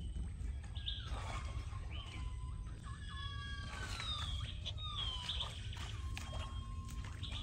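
Monkeys calling: a string of long, drawn-out cries, some holding one pitch and some sliding down, several overlapping.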